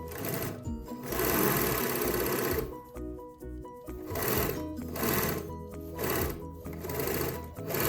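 Singer 81A1 three-thread overlock machine running in spurts: one run of about a second and a half, then several short bursts, over background music.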